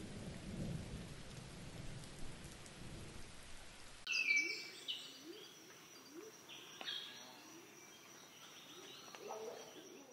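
Steady rain with a low rumble. About four seconds in it gives way to birds calling: bright chirps and short rising calls repeating about twice a second.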